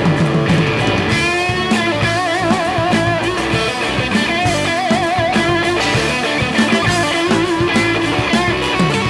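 Rock band playing an instrumental break: an electric guitar lead holds notes with wide vibrato over drums and rhythm instruments.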